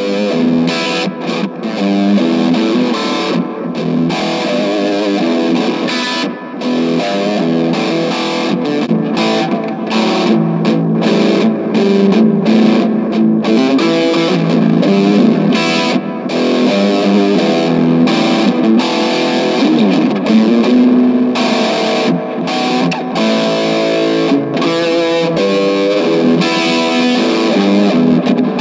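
Electric guitar, a Gibson Les Paul Jr with P90 pickups, played through a VOX AC4C1-12 valve combo amp with a Boss DS-2 distortion pedal: continuous distorted riffs and notes.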